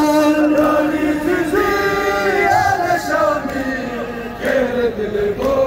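Crowd of men chanting a Shia mourning lament (noha) in unison, in long held, slowly gliding notes.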